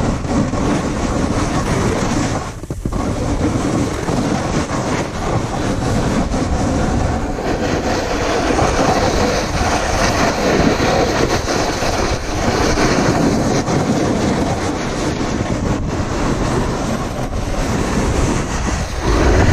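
A snowboard sliding and scraping over rough, chopped-up snow: a loud, continuous rattling rumble that drops out briefly about three seconds in.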